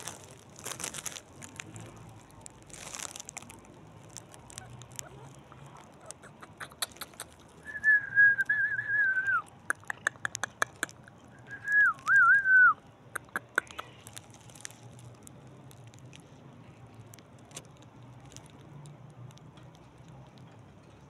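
Two wavering whistles, the first about a second and a half long and the second shorter, each dropping in pitch at the end, with a scatter of sharp clicks around them.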